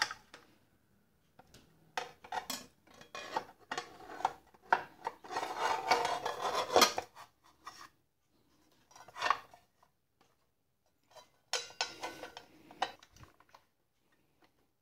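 A Craftsman steel circular saw blade being handled and fitted onto a miter saw's arbor: metal scraping and clicking against the blade guard and flange. It comes in three spells with short pauses between.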